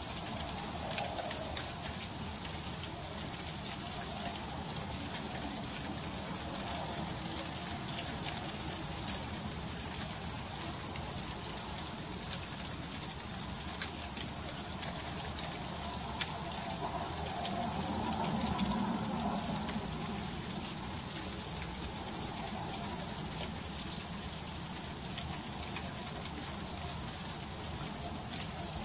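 Freezing rain falling steadily: a dense, even patter of fine ticks as icy drops strike surfaces.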